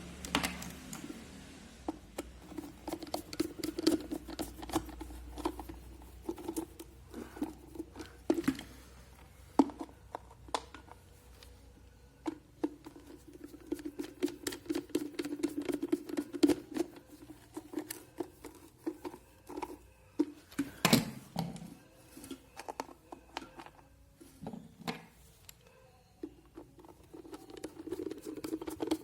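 Screws being driven into the plastic base of an electric kettle by hand: repeated clicks, taps and scraping of the screwdriver and plastic parts, with a steady low hum in several stretches.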